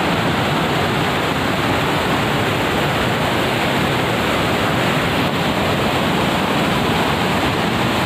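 Loud, steady rushing of a large waterfall and the white-water rapids below it, an even noise with no breaks.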